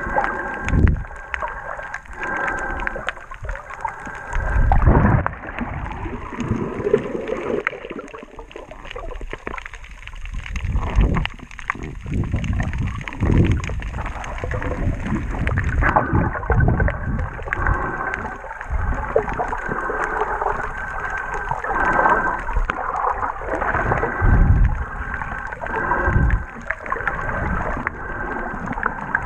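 Muffled underwater water noise picked up by a camera held under the surface while snorkeling: gurgling and sloshing with irregular low thumps every second or two.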